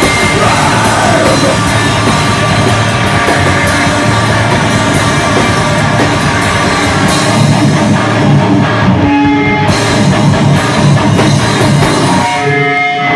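Live heavy rock band playing loud, with distorted electric guitars and a drum kit pounding. Near the end the playing drops away, leaving held guitar notes ringing.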